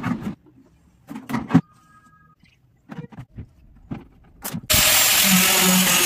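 Scattered knocks and taps from handling a plastic paint bucket, then, about three-quarters of the way in, an angle grinder starts suddenly and runs loud and steady, cutting into the bucket's plastic wall.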